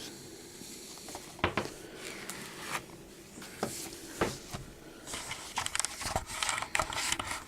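A plastic Blu-ray case and its cardboard slipcover being handled: a few scattered knocks and clicks, then a stretch of crinkly rustling near the end.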